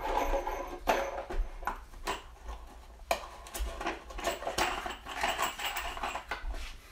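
Loose metal screws clinking and rattling as they are handled, an uneven scatter of light clicks with rustling.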